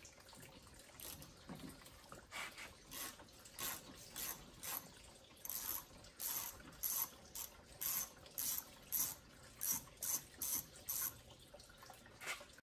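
Hand ratchet wrench working a bolt, with a short burst of clicks on each stroke. The strokes come slowly at first, then settle into a steady run of about two a second about halfway through.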